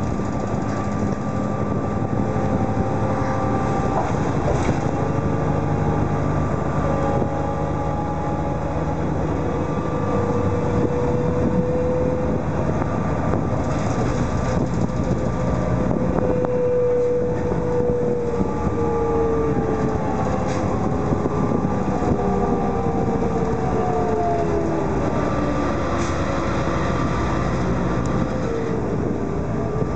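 City bus in motion, heard from inside the passenger cabin: a steady rumble of engine and road noise with a whine that slowly rises and falls in pitch as the bus speeds up and slows, gliding down over the last several seconds.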